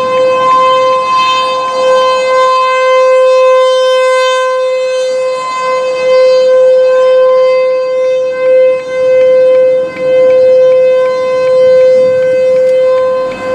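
Fulton T-128 outdoor warning siren sounding for a tornado warning: one loud, steady tone that holds its pitch, swelling and briefly dipping in loudness a few times.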